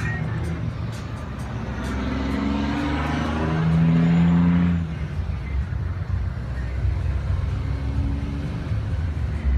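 A vehicle engine idling with a steady low rumble. Some held tones swell over it from about two to five seconds in.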